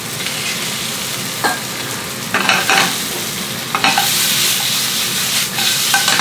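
Coated shrimp, shrimp shells and onions sizzling in oil in a metal frying pan, stirred with metal tongs that clink and scrape against the pan several times. The sizzle grows louder about four seconds in.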